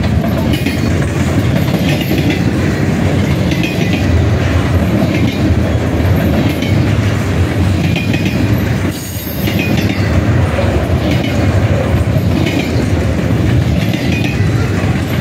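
Double-stack intermodal well cars of a freight train rolling past at close range: a steady heavy rumble of steel wheels on rail, with clicking as wheels cross rail joints. The level dips briefly about nine seconds in.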